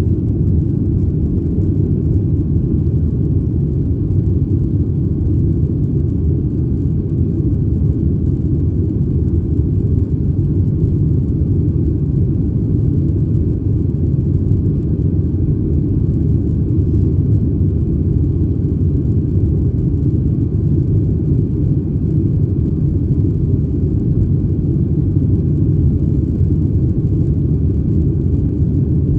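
Steady low rumble of a Boeing 737-800's CFM56 engines and airflow heard from inside the passenger cabin, level and unchanging throughout.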